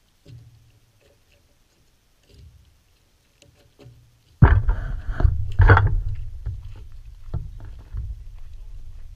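Wind rumbling and buffeting on the camera microphone, starting suddenly about four and a half seconds in, with scattered clicks and crunches of footsteps on gravel as the camera moves.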